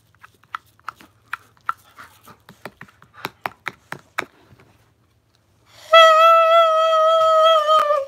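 A run of short squeaks as a cloth wipes a clarinet mouthpiece, then, about six seconds in, one loud held note blown on the mouthpiece alone, steady and sagging slightly in pitch just before it stops.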